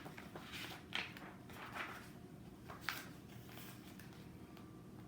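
Faint paper rustles and soft handling noises, a few brief ones in the first three seconds, as the pages of a picture book are turned. Quiet room tone lies underneath.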